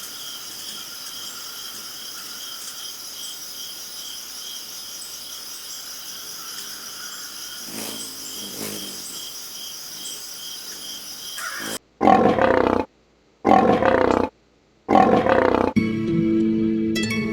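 Insect chirping repeating about twice a second over a steady hiss. About twelve seconds in come three loud animal roars, each about a second long and cut off by silence, and then plucked harp music resumes.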